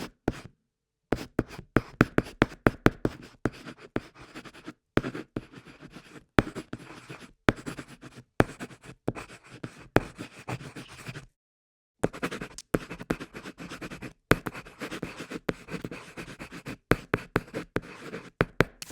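Pencil point scratching across paper in quick bursts of short strokes, writing and marking, with brief silent pauses as the pencil lifts, the longest about eleven seconds in.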